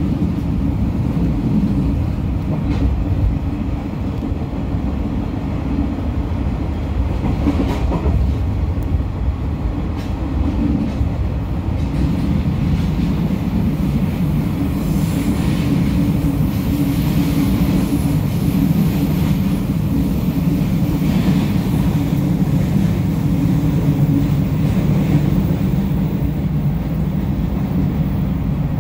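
Passenger train running along the track: a steady low rumble, with added hiss and a faint high whine for several seconds about halfway through.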